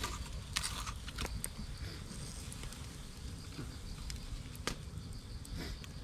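Wood campfire crackling, with scattered sharp pops from the burning logs, over a faint steady chirring of insects.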